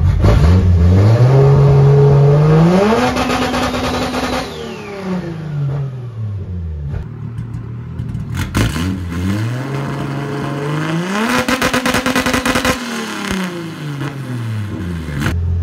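Turbocharged RB20 straight-six in a Nissan Laurel revved twice from idle. Each time it climbs, holds at a flat high pitch against the newly set rev limiter, then falls back to idle. On the second rev the hold comes with a rapid stutter as the limiter cuts.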